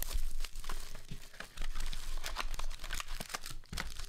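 Foil trading-card pack crinkling and crackling under hands handling it, a dense run of small crackles and clicks.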